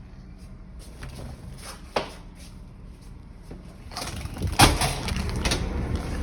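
A sharp knock, then a stretch of bumping and clattering with one loud bang, like a door or cupboard being handled.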